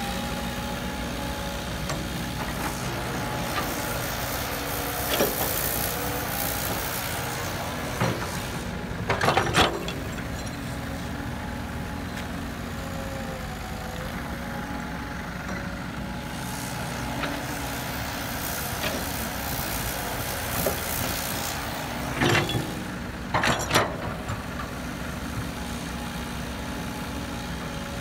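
Caterpillar hydraulic crawler excavator running steadily while digging soil, its engine and hydraulics giving a steady hum with a faint whine. Short bursts of knocking and clatter come about nine seconds in and again about twenty-three seconds in.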